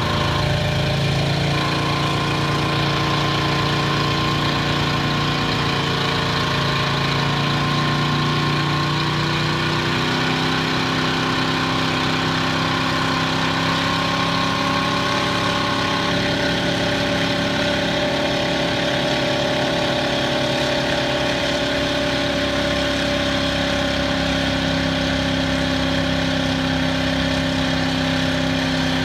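Mercruiser 5.0 small-block V8 inboard/outboard with thru-hull exhaust running underway, heard with the engine hatch open. Its pitch eases down a little in the first ten seconds, then holds steady.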